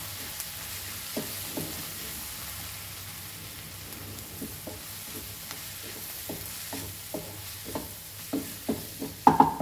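Onions, tomatoes and spice masala sizzling in ghee and oil in a non-stick kadai, with a wooden spatula stirring and scraping against the pan. The scraping strokes come faster and louder near the end.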